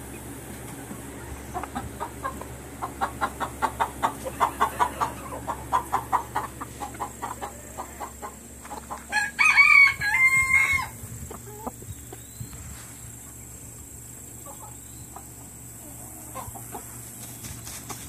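Chickens: a hen clucking in a fast run of clucks that swells and then fades over several seconds, followed by a rooster crowing once for about two seconds around the middle.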